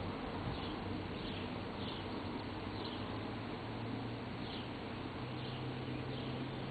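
Summer field ambience: short high chirps repeating irregularly about once or twice a second over a steady hiss and a low hum that rises slightly in pitch about five seconds in.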